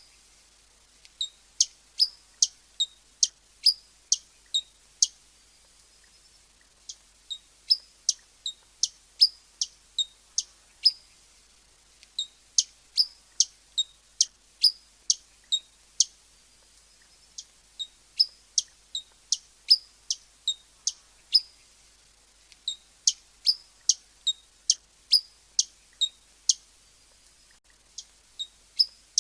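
Hummingbird giving sharp, high chip calls, about two or three a second, in runs of several seconds broken by short pauses.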